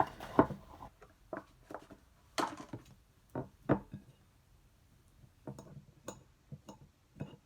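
Scattered knocks and clicks, about a dozen at an irregular pace, from takeout food containers, a plate and utensils being handled as food is dished out.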